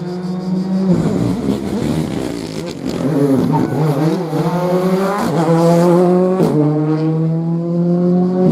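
Rally car engine accelerating hard, its pitch climbing and dropping back sharply at each upshift, twice in the latter half.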